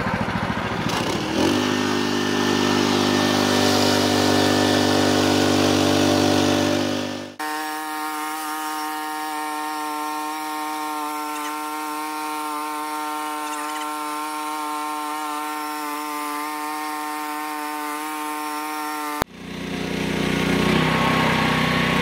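The 15 hp petrol engine and band blade of a bandsaw mill run steadily as the mill cuts through a Blue Gum hardwood log. About seven seconds in, the sound jumps abruptly to a higher, thinner hum because that stretch is sped up. It drops back to the normal lower engine note near the end.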